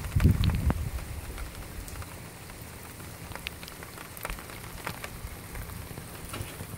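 Steady rain falling on pavement and soaked ground: a constant hiss with scattered drop taps. A low rumble on the microphone during the first second.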